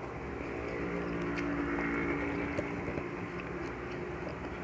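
A motor vehicle's engine hum that swells for a couple of seconds and then fades, as if passing by, with a few faint clicks of eating by hand.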